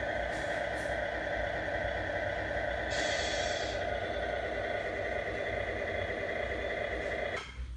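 Tamiya 1/14 Freightliner Cascadia Evolution RC truck's sound unit playing a steady truck-engine sound, with a short hiss about three seconds in. The engine sound cuts off suddenly near the end.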